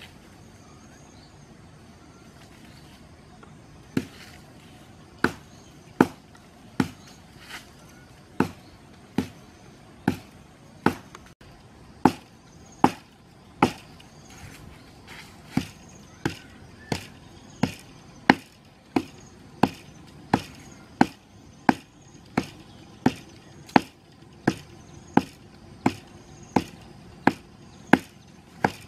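A blade chopping into the trunk of a small tree in steady, sharp strokes, a little more than one a second, starting about four seconds in.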